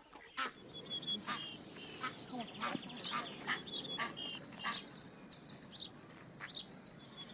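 Birds chirping and trilling outdoors: many short, high calls and a buzzy trill, with faint background noise.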